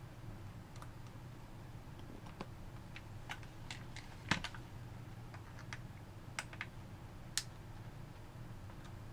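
Light, irregular clicks and taps as a screwdriver works the Phillips screws out of the back of a plastic PS4 controller, the sharpest tap a little over four seconds in, over a faint steady low hum.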